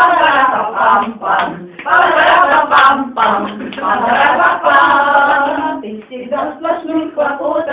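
A small group of women singing a song together, unaccompanied, with long held notes.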